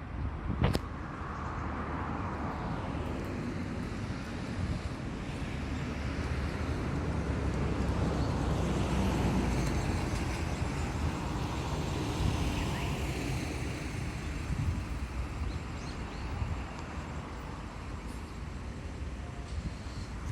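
Road traffic passing: a steady rush of car noise that swells to its loudest about halfway through and then fades.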